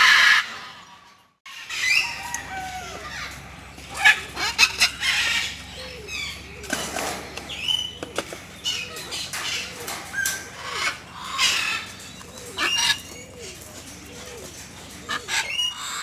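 Agitated military macaws calling in a string of short squawks and lower grumbling calls, many sliding in pitch, mixed with sharp clicks.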